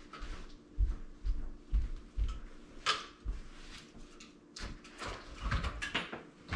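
Footsteps on a hardwood floor, low thumps about two a second, then wooden knocks and clatter near the end as split firewood in a canvas carrier is set down on a stone hearth.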